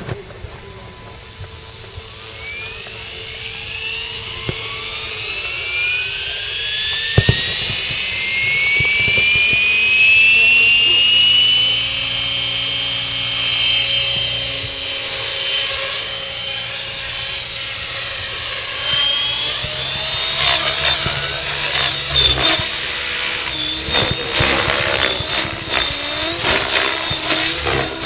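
Logo 600SE radio-controlled helicopter spooling up, its motor and rotor whine rising steadily in pitch over about ten seconds and then holding as it hovers. In the last several seconds, as it flies hard manoeuvres, the rotor noise surges and wavers in quick pulses.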